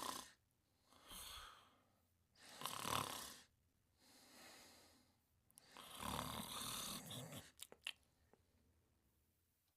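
Snoring in a slow rhythm: loud snores alternate with softer breaths about every one and a half seconds, and the last snore is longer. A few faint clicks follow near the end.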